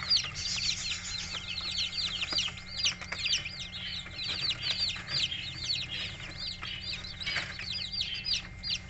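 A brood of young chicks peeping constantly: many short, high, falling peeps overlapping several times a second.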